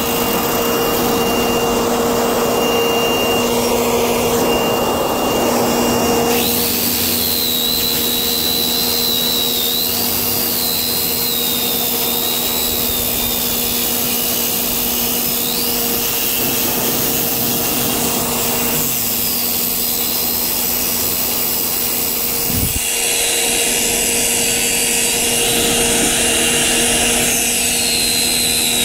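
Electric circular saw with a diamond blade running steadily as it cuts a long groove in asphalt paving, with a vacuum motor running alongside at the cut. A wavering high whine rises from the blade partway through.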